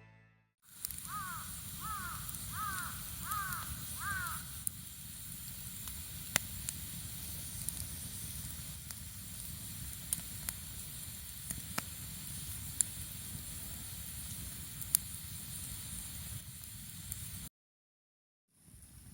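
Wood campfire burning with a steady hiss and scattered sharp crackles and pops. Early on, a bird calls five times in quick succession.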